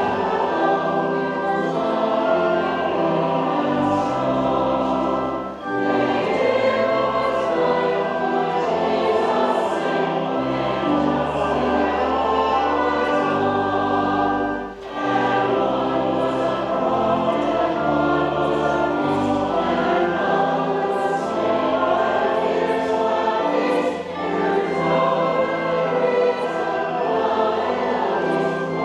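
A choir singing with instrumental accompaniment and sustained low bass notes. It pauses briefly between phrases three times.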